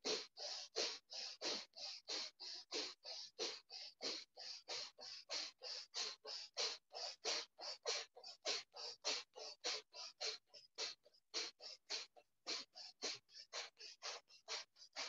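Rapid, forceful breathing in and out through the nose in a steady quick rhythm, about three breaths a second: a fast pumping breath exercise, inhaling and exhaling as hard and fast as possible.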